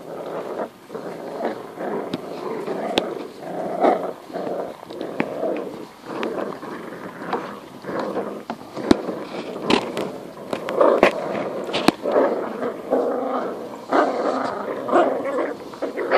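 Puppies growling as they tug at a stuffed teddy bear, the growls coming in short overlapping spells, with scattered sharp clicks and scrapes on the paving stones.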